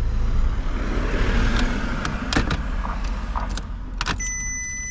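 Audi's engine running with a steady low rumble, with a few sharp clicks of handling in the car. A steady electronic tone, like a dashboard warning tone, comes on near the end.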